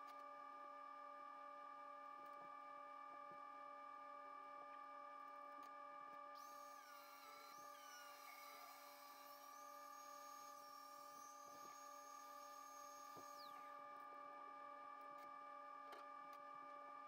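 Very faint overall: a steady electrical hum and whine, with an angle grinder's high whine coming in about six seconds in as it grinds steel. The whine winds down with a falling pitch about seven seconds later.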